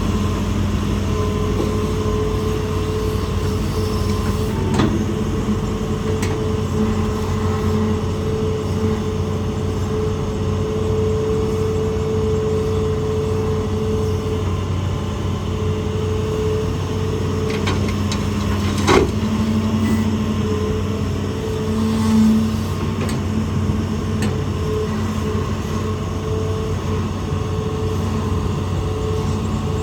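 Hitachi ZAXIS200 hydraulic excavator working, its diesel engine running steadily. A sharp knock comes about five seconds in and a louder one a little past the middle, with a brief swell in the engine sound a few seconds after that.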